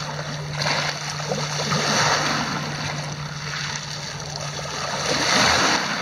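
Small sea waves lapping and washing over a pebble beach, the water swirling and splashing among the stones. The wash swells twice, about two seconds in and more strongly near the end.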